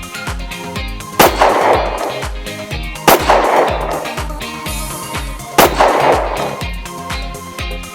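Three dubbed-in sniper-rifle gunshot sound effects, about two seconds apart, each a sharp crack with a long echoing tail. Background music with a steady bass beat plays under them.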